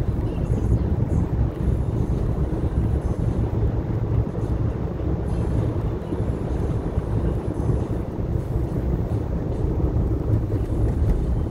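Steady low rumble of road and engine noise inside a moving vehicle's cabin while driving at road speed.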